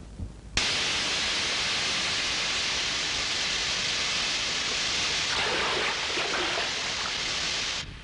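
A steady, loud hiss of spray jetting from a pipe that has been cut open. It starts suddenly about half a second in and cuts off sharply near the end.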